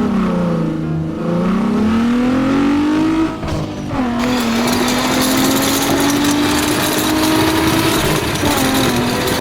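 A car engine revving as the vehicle drives off: the pitch shoots up at the start, dips, then climbs slowly, drops briefly about three seconds in and climbs slowly again before falling near the end. A rushing hiss joins the engine from about halfway.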